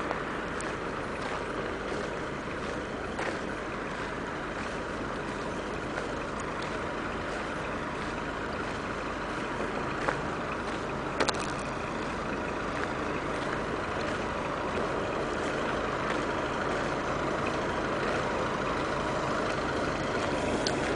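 A vehicle engine running steadily, with a few faint clicks about three, ten and eleven seconds in.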